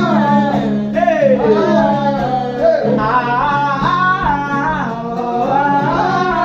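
Gospel prayer song: a voice sings wordless phrases that glide downward over a steady, sustained accompaniment.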